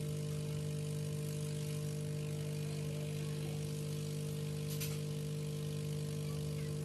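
Hot-air rework gun blowing steadily on a phone's charging socket to melt its solder, a constant hum with a fixed pitch. A short sharp click about five seconds in.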